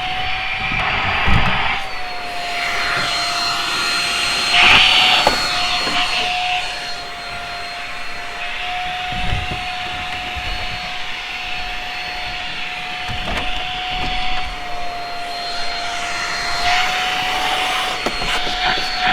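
Shark Rocket corded stick vacuum running with a steady high whine over a rush of suction, working carpet edges. Its motor pitch dips slightly now and then as the head is pushed and loaded, with a few brief knocks.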